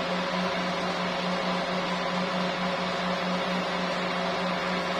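Steady mechanical hum: a low droning tone that pulses several times a second over an even fan-like hiss, as from running equipment or ventilation.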